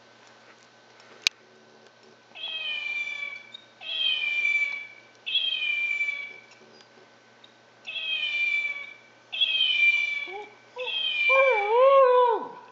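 A plush kitten toy's electronic meow sounding six times in a row, each recorded meow about a second long and falling in pitch, after a sharp click about a second in. Over the last meow a wire fox terrier howls along in a lower, wavering voice that drops away at the end.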